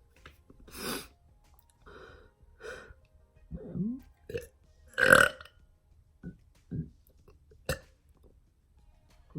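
A man's repeated burps, brought up by drinking carbonated ginger ale: a run of short, separate belches about one a second, the loudest about five seconds in.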